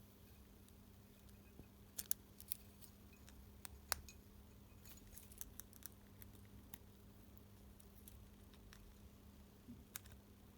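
Scattered faint clicks and taps of small plastic parts and hand tools being handled, over a low steady hum.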